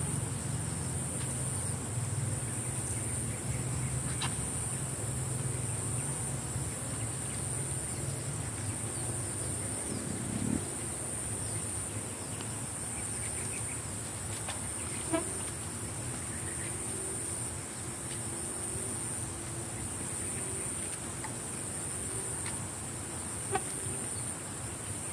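Steady high-pitched drone of insects in the surrounding farmland, continuous and even, over a low rumble of background noise.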